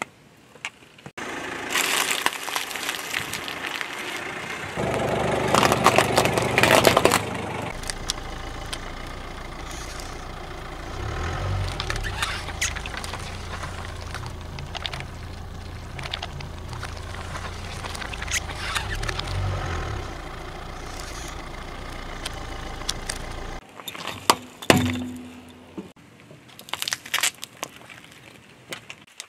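A car's tyre slowly rolling over and crushing objects on asphalt, in a series of short takes: cracking and crunching of tins and plastic containers under the wheel, loudest about five to seven seconds in. Through the middle the car's engine runs steadily, with sharp separate cracks again near the end.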